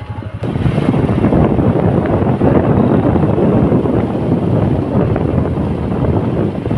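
Wind buffeting the microphone of a phone held by riders on a moving motorcycle, loud and rushing, with the motorcycle's engine underneath; it starts abruptly about half a second in, where the quieter engine running before it is cut off.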